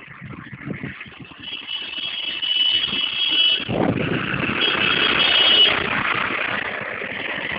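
Road traffic on a steel truss bridge: a truck passes close by with engine and tyre noise, building to its loudest just after the middle. A high-pitched horn sounds twice, a long blast then a shorter one.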